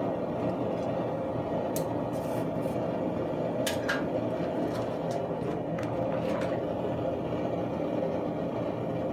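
Propane gas forge burner running with a steady roar, with a few short light metallic clinks about two, four and six seconds in.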